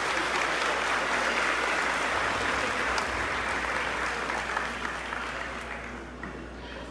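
Audience applauding, the clapping steady at first and dying away over the last second or two.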